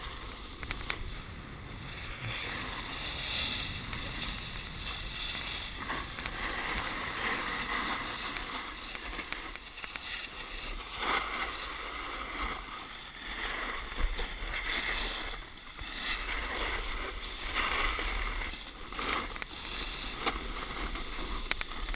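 Snowboards sliding over packed snow: a scraping hiss that swells and fades as the edges carve each turn. Wind buffets the microphone with a low rumble throughout.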